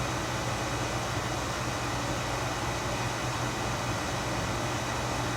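Steady room noise: an even hiss with a low hum underneath, unchanging throughout.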